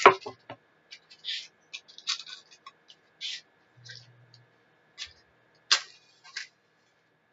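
A candle being lit by hand: a sharp click at the start, then a series of short, scratchy strikes and rasps spread over the following seconds.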